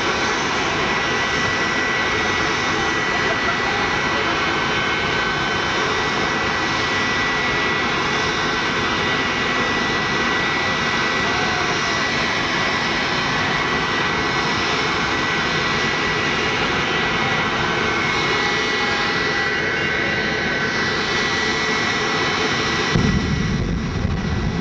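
General Electric J79 military jet engine inside a jet-powered ambulance, running loud and steady with a high whine over the noise. About a second before the end, a deep rumble comes in suddenly as flame shoots from the exhaust, the afterburner lighting.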